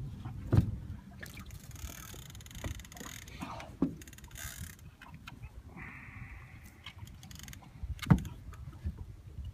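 Wind rumbling on the microphone and water against a small boat's hull while a big fish is played on a heavy rod, with a few sharp knocks, about half a second in, near four seconds and near eight seconds, and a brief buzzing whirr around six seconds.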